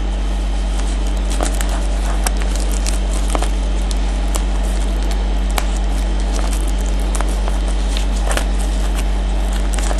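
Steady crackling hiss over a low electrical hum, with many faint scattered clicks.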